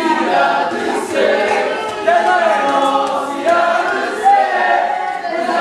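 A crowd of students chanting and singing together in loud, continuous unison, with many voices overlapping.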